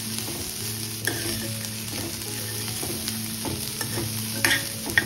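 Diced vegetables sizzling in oil in a stainless steel pan while a metal spoon stirs them, with a few sharper scrapes and taps against the pan, most of them near the end.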